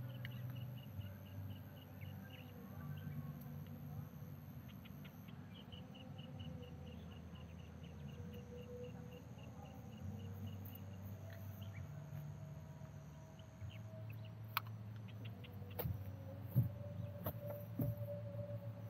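Evening insects chirping: a regular pulsed trill of about five chirps a second over a low steady hum, with a few sharp clicks near the end.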